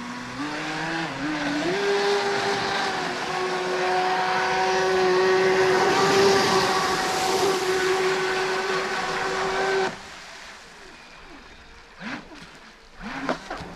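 56-inch RC jet boat running fast on 12S. The whine of its 350 kV brushless motor and jet drive climbs in a couple of steps over the first two seconds, then holds a steady high note over a loud hiss of jet spray. It cuts off suddenly about ten seconds in.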